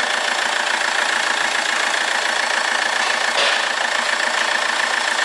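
Vauxhall Astra H 1.9 CDTi four-cylinder turbodiesel idling steadily, running with a newly fitted intercooler and showing no boost leaks.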